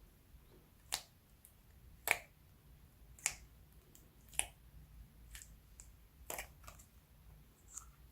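Slime being kneaded and squeezed by hand, giving sharp clicking pops about once a second with fainter ones in between.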